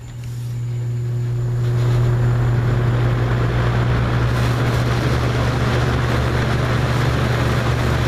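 Mid-1980s Toastmaster 4425 box fan starting up on medium speed. The motor hums as soon as it switches on, and the rush of air from the blades builds over about two seconds, then holds steady.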